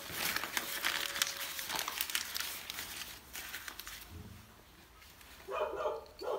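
Hands crumpling and tearing white paper into tinder for lighting a wood fire, a dense crinkling for the first few seconds that then eases off. A brief voice-like sound near the end.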